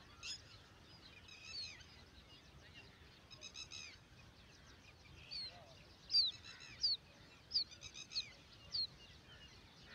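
Red-wattled lapwings calling: short, sharp high notes that slur downward, with the loudest coming several in quick succession in the second half and fainter chirps between.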